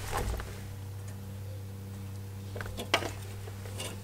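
A few light clicks and taps of a brake pad's metal backing plate against the caliper bracket's hardware clip as it is slid into place by hand, over a steady low hum.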